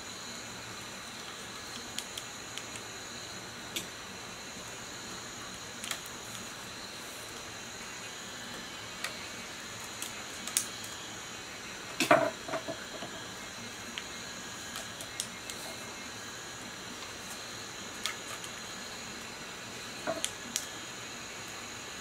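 Scattered light clicks and taps of copper winding wire and slot insulation being handled in a generator stator, over a steady high hiss. About halfway through comes a louder metallic clatter with a brief ring as a hand tool is taken up from the wooden worktable, and a smaller double tap follows near the end.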